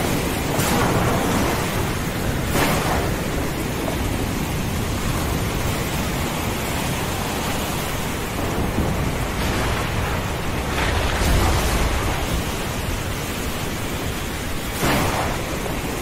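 Thunderstorm: a steady hiss of heavy rain, with several sharp thunder cracks and a deep rumble of thunder a little past the middle.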